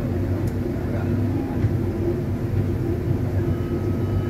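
Steady low drone of a passenger ferry's engines under way, heard inside the enclosed seating cabin.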